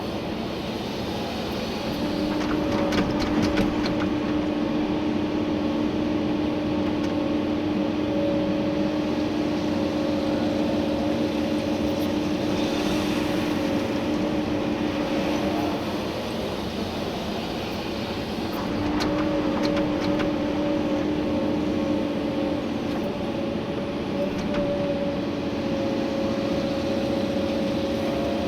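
Komatsu PC290-11 excavator's diesel engine and hydraulics running, heard from inside the cab: a steady hum that gets louder about two seconds in, eases off past the halfway point, and rises again a few seconds later as the machine works. A few sharp knocks come through.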